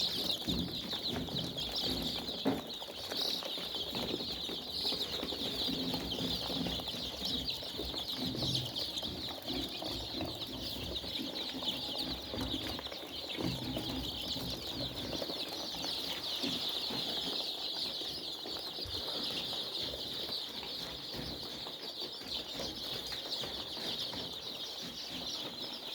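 A large flock of farmed chickens calling all at once, a dense, continuous chorus of high peeping and clucking with occasional wing flapping.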